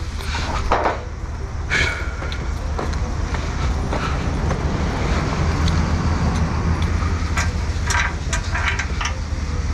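Steady low drone of an idling diesel truck engine, with footsteps on gravel and a few sharp metal knocks and clanks from the car hauler trailer's deck gear, several of them together near the end.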